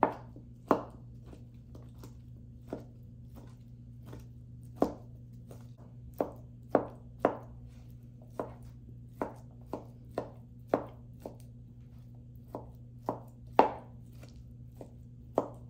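Chef's knife chopping cooked chicken on a plastic cutting board: irregular sharp knocks of the blade striking the board, about one to two a second, over a low steady hum.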